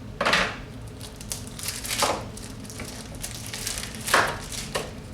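Plastic blind-bag toy packaging being crinkled and torn open by hand: several short crinkling rustles, the loudest near the start and about four seconds in.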